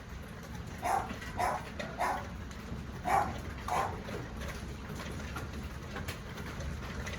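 A dog barks five times in two short runs, over the steady rush of a heavy hailstorm.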